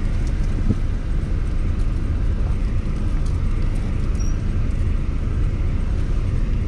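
Pickup truck driving, heard from inside the cab: a steady low engine and road rumble.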